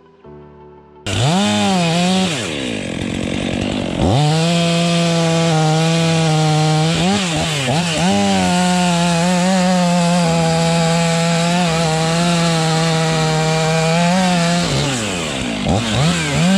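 Petrol chainsaw starting up about a second in and revving, then held at high revs for about ten seconds with brief dips in pitch, and revving up and down again near the end.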